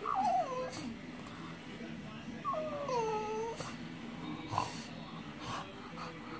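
French bulldog whining twice in falling, pitched whimpers, a short one at the start and a longer drawn-out one about halfway through. The owner reads the whining as the dog wanting to go outside.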